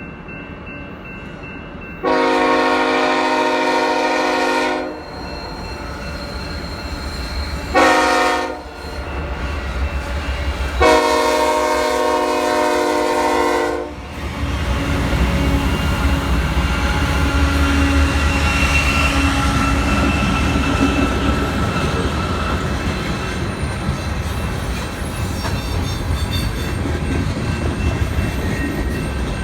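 GE C44-9W diesel locomotive's Nathan K5HL five-chime air horn sounding a long blast, a short blast and another long blast. The locomotives' diesel rumble and the rolling freight cars then run on steadily.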